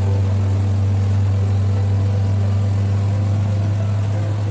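Engine running steadily with an even, low drone that holds one pitch throughout.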